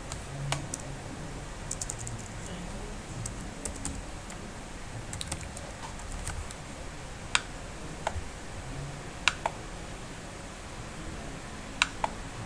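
Sparse computer keyboard keystrokes and mouse clicks: about a dozen sharp clicks spread unevenly, over a faint low background hum.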